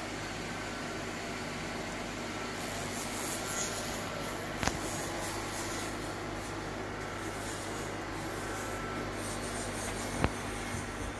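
Kitamura Mycenter 4 CNC vertical machining centre running with a steady mechanical hum and a faint high whine, with two sharp clicks, one near the middle and one near the end.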